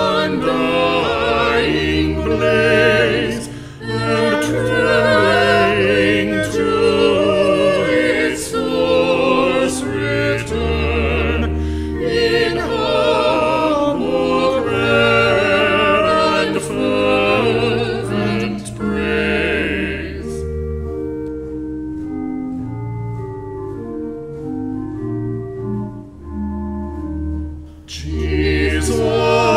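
Choir singing with organ accompaniment, the voices full of vibrato over sustained bass notes. About two-thirds of the way through the voices drop out for a short organ-only passage of held chords, and the singing comes back in near the end.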